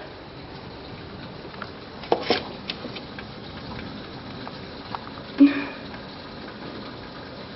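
Heavy rain pouring down, heard through a window as a steady even hiss, with a few sharp clicks about two seconds in and a louder knock about five and a half seconds in.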